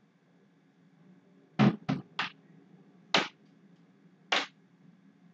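Five short dull thuds, three close together about a second and a half in, then two more spaced about a second apart: a dull noise that the speaker puts down to the wind.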